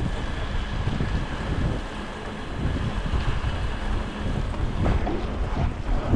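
Wind buffeting the microphone of a mountain bike moving through snow, over the steady crunch of its tyres rolling on the snow.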